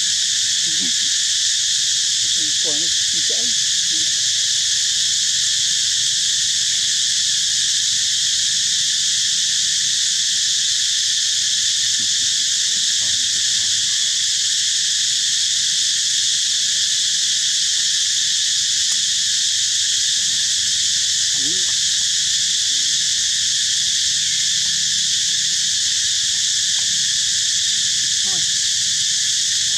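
Dense, steady chorus of insects, a continuous high-pitched shrill that does not let up. A few faint short calls sound underneath near the start and again later.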